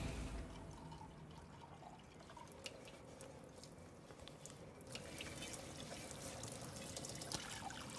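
Faint kitchen-sink sounds: water trickling from a tap and small clinks and clicks of dishes being washed, picking up about five seconds in.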